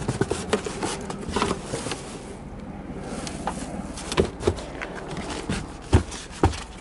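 Handling noises in a car's trunk: a carpeted trunk floor panel is lifted and moved by hand, giving scattered knocks, scrapes and thumps, with the two loudest thumps near the end.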